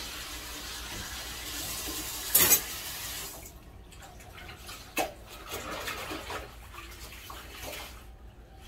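Running water, steady for about three and a half seconds with a brief louder gush near the middle, then shut off. A sharp click about five seconds in, followed by scattered softer water sounds.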